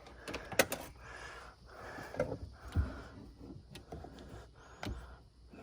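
A few light knocks and clicks over rustling, scattered and irregular.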